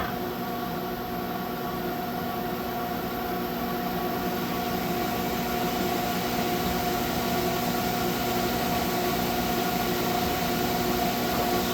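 Haas ST-10 CNC lathe running under power: a steady machine hum with several held tones over a background hiss.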